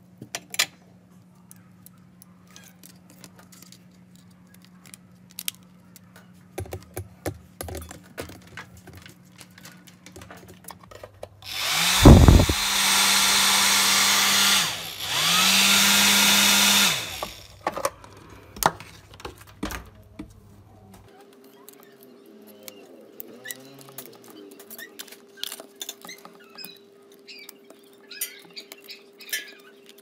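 Hair dryer fan motor switched on briefly twice, a thump as it starts and then a loud steady rush of air for about three seconds, a short stop, then about two seconds more: a test run of the freshly re-soldered fan and heating-element assembly. Small plastic clicks and rattles of handling come before and after.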